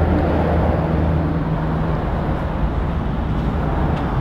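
A steady low motor hum over a constant noisy wash.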